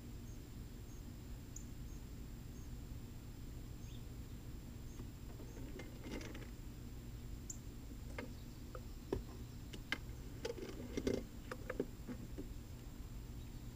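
Light clicks and knocks of hands handling the wooden Flow Hive, scattered and clustered about nine to eleven seconds in, over a steady low hum.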